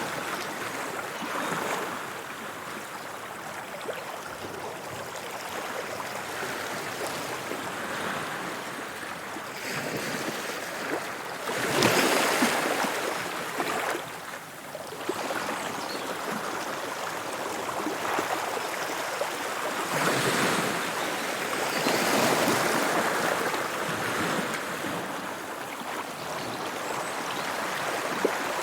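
Sea waves washing onto the shore, a steady rush that swells and ebbs as each wave comes in, with the biggest break about twelve seconds in.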